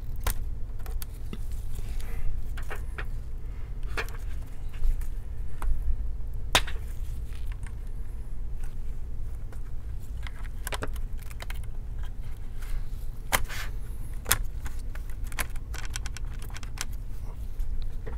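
Scattered small clicks and taps of a pry tool working the CPU fan connectors and heatsink inside an opened ASUS ROG Zephyrus G14 laptop, over a steady low hum.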